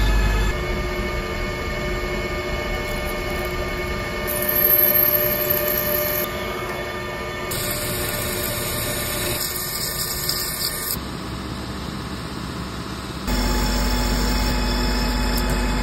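Metal lathe running while a carbide insert tool turns and faces a spinning metal workpiece: a steady whine of motor and gearing under the hiss of cutting. The sound changes abruptly every few seconds and gets louder, with a low hum added, near the end.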